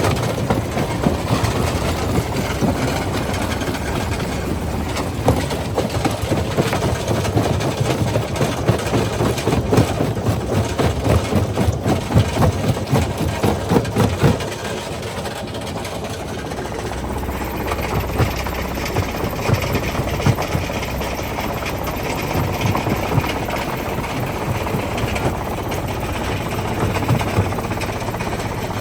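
Quarry primary jaw crusher crushing rock: a steady machine drone with dense cracks and knocks of breaking stone, which thin out and ease about halfway through.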